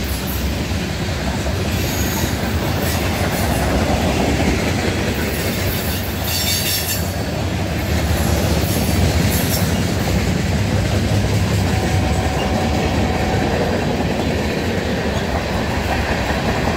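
A freight train's cars roll past close by: a steady rumble of steel wheels on rail. About six and a half seconds in there is a brief high squeal from the passing cars.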